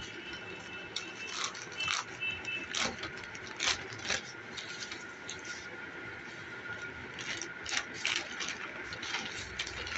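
A plastic courier mailer being torn open and handled by hand: irregular crinkling and rustling of the plastic, with sharper crackles every second or so.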